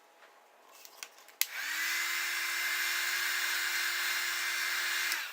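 Handheld hot-air blower switched on with a click about a second and a half in: its fan whines up to speed and then blows steadily, heating the edges of an iPod Touch so its screen can be pried off. It cuts off just before the end.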